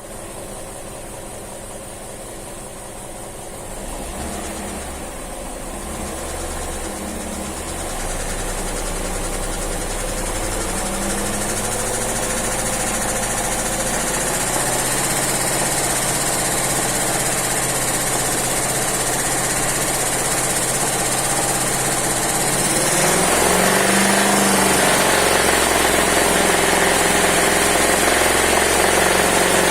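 Engine running with a knock, its revs raised in steps about 4, 8 and 23 seconds in, getting louder each time. The knock is being checked against oil pressure, typical of a worn crankshaft or rod bearing if pressure is low.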